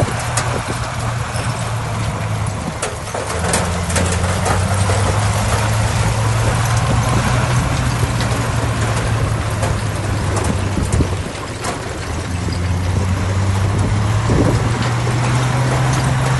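Heavy diesel engine of earthmoving machinery running steadily under load. Its pitch dips for a moment past the middle and climbs again toward the end, with a few scattered clanks.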